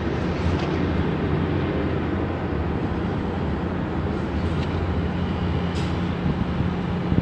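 Steady low rumble of city noise, a constant hum and hiss with a few faint, brief high squeaks.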